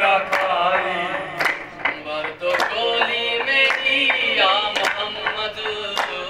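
Male voices singing a qawwali without instruments, the melody gliding up and down, with sharp hand claps landing roughly once a second.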